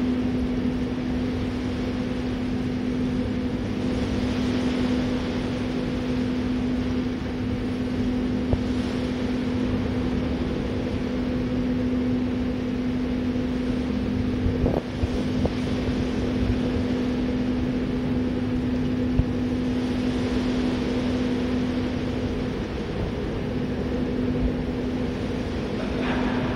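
Ship's bilge well being pumped out through the bilge suction: water rushing and swirling down into the suction, over a steady machinery hum with a constant low tone. A brief knock about halfway through.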